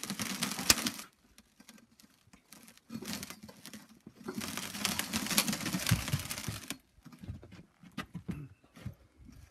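Scraping, rustling and knocking as a Say-Mak SPH-60 power hammer is pushed across rollers by hand, in bursts of a second or two, with scattered short knocks near the end.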